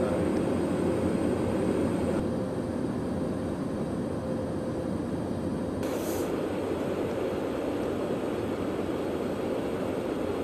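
Steady roar of airflow and jet engines heard from inside a tanker aircraft during mid-air refuelling of an F-16. A faint steady hum runs through the first half, and a brief hiss comes about six seconds in.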